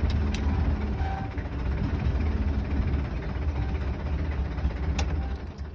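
Kubota M9000 tractor's diesel engine idling steadily, with a few sharp clicks over it.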